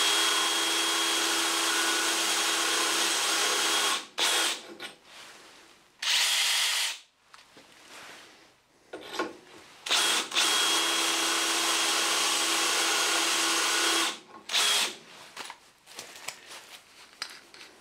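Cordless drill running a new JCB Diamond Tech diamond holesaw, grinding a core down through a hardened steel broken tap. The drill runs with a steady whine for about four seconds, stops and gives a few short bursts, then runs steadily for about four seconds more.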